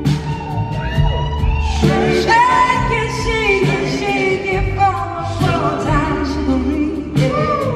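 Live blues-rock band playing: a woman singing lead over electric guitar, bass and drums with cymbal strikes.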